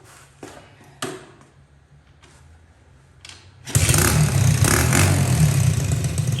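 A few sharp clicks over a faint low hum, then about three and a half seconds in the Lifan 125 single-cylinder engine of a minibike starts and runs loudly and steadily.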